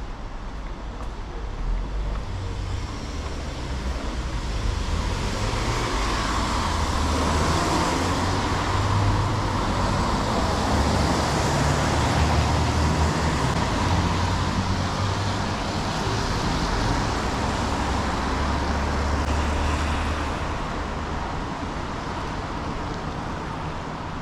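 Road traffic passing on a wet city street: low engine rumble and tyre hiss swell up over several seconds, hold, then fade away near the end.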